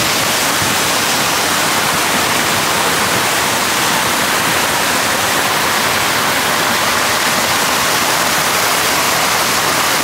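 Water pouring from a wooden flume onto a mill's water wheel, a steady, even rush.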